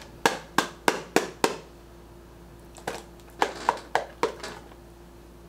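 A quick run of sharp clicks made by hand, about three a second: five in the first second and a half, then about six more from about three seconds in.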